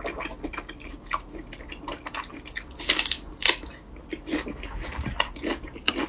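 Close-up wet chewing of a mouthful of red-braised pork belly: irregular sticky clicks and lip smacks, loudest about three seconds in.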